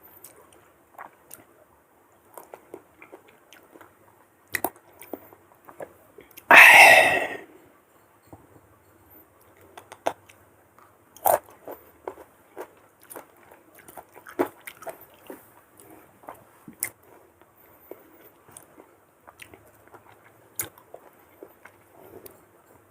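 Slices of unripe green mango being bitten and chewed close to the microphone: one loud crunching bite about seven seconds in, then a long run of smaller crunches and chewing clicks.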